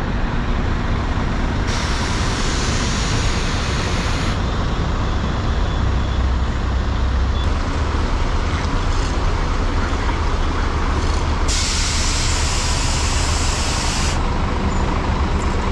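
Scania multi-axle bus's diesel engine running with a steady low rumble as the bus pulls slowly around, with two long hisses of released air from its air brakes, one about two seconds in and one about eleven seconds in.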